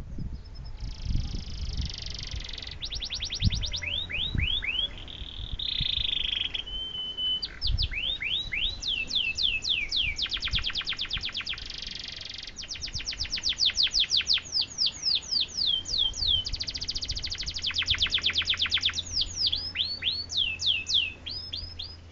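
Domestic canary singing a long, varied song: fast trills of rapidly repeated notes alternating with runs of falling whistled notes and buzzy rolls. A few low thumps sound in the first few seconds.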